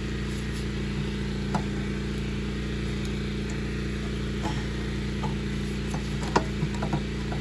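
A few light metallic clicks and taps of small engine parts and bolts being fitted and aligned by hand, over a steady background hum.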